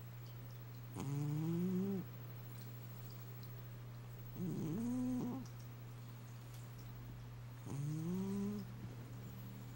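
A cat snoring: three pitched snores about three seconds apart, each lasting about a second, the first and last rising in pitch. A steady low hum runs underneath.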